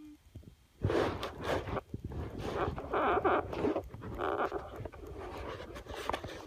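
A sleeping pet snoring: repeated noisy, rasping breaths starting about a second in, mixed with clicks and rubbing from the phone being handled.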